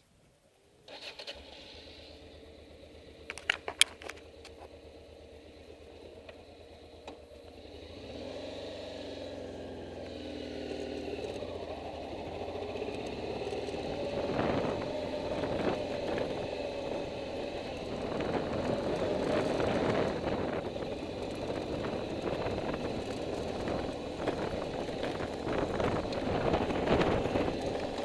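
Motorcycle engine idling steadily, with a few sharp clicks a few seconds in. Then it pulls away, and engine and road noise build up and run on at riding speed.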